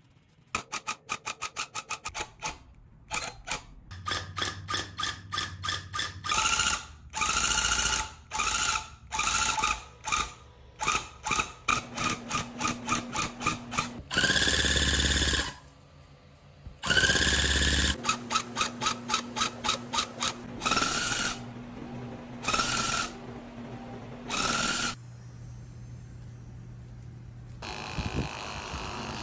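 Electric rug-tufting gun punching yarn into backing cloth in many stop-start bursts: first a quick string of very short pulses, then longer runs of up to a second and a half. Near the end an electric carpet trimmer runs steadily and more quietly.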